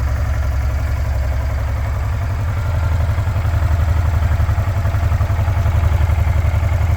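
2008 Honda Transalp 700's V-twin engine idling through its stock exhaust, an even low pulsing beat that gets slightly louder from about three seconds in.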